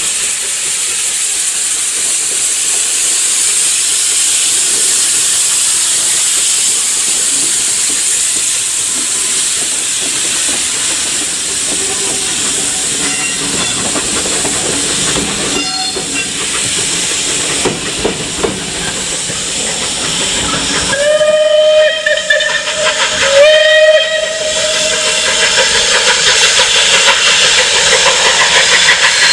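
Steam locomotive hissing steadily, with steam blowing from the open cylinder drain cocks as it moves along. Two blasts of a locomotive whistle come about 21 and 23 seconds in.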